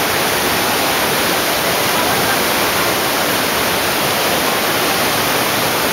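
Steady rush of stream water pouring over rocks.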